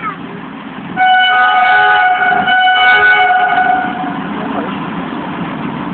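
Satluj Express locomotive horn sounding one steady blast of about three seconds, starting about a second in, over a steady low rumble.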